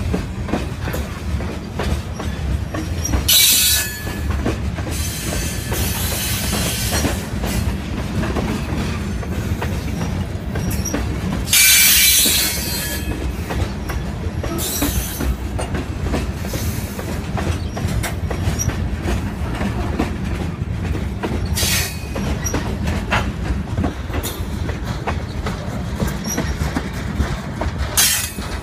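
Freight train of covered hopper cars rolling past: a steady low rumble with wheels clicking over the rail, broken by several brief high-pitched wheel squeals, the longest about twelve seconds in.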